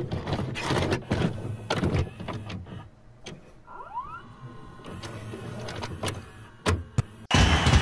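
Video cassette recorder mechanism working: a series of clicks and clunks from the buttons and the tape loading, under a motor whir, with a short rising whine about four seconds in. Music starts suddenly near the end.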